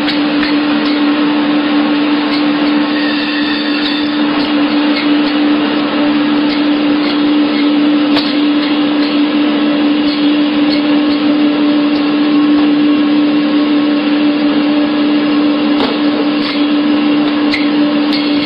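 A machine running steadily at a constant speed, a motor drone with a strong even hum and a few faint clicks over it.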